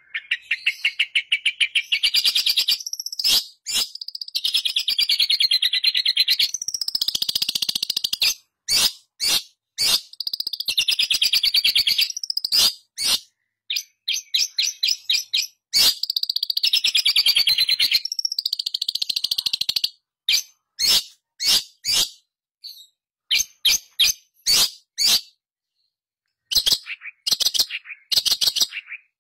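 Long-tailed shrike (pentet) singing: long, fast chattering runs of high notes, broken by short sharp single calls and brief pauses. The last third is mostly separate sharp notes.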